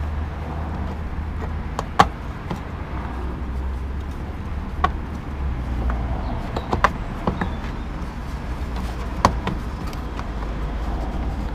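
Scattered short plastic clicks and knocks as a fog light unit is pushed and twisted into a Mercedes SLK 350's front bumper, the sharpest about two seconds in, over a steady low rumble.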